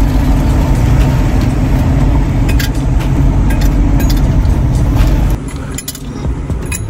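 Steady road and engine noise inside a moving car, with a few light clinks as the lid of a stainless steel Stanley vacuum bottle is handled. About five seconds in the road noise drops away, and ice cubes clink against the bottle's steel neck as they are dropped in.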